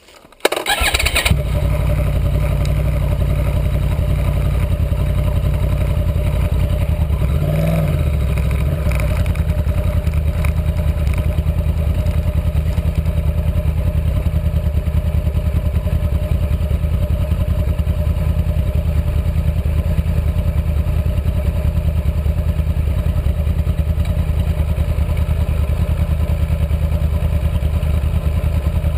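Stock Yamaha R1 (RN22) crossplane inline-four engine starting about half a second in, with a quick blip. It then idles steadily, with one brief rev about eight seconds in.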